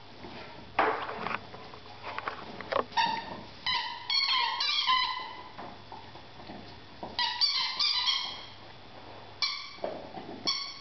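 Rubber squeaky dog toy being chewed by a German shepherd, giving short high squeaks in quick bursts, with a few softer rustles and clicks of mouthing between them.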